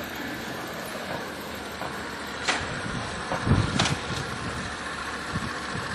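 Road traffic at a railway level crossing, a steady hum of passing vehicles, with two sharp knocks and a low thump in the middle.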